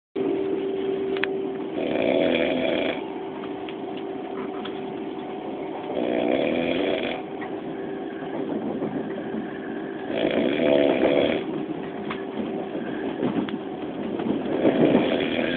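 A man snoring: four long snores about four seconds apart. A steady hum from the moving train carriage runs underneath.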